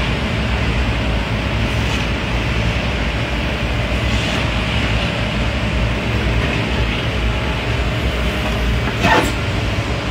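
Spider excavator's diesel engine running steadily, a continuous low rumble, with one brief knock near the end.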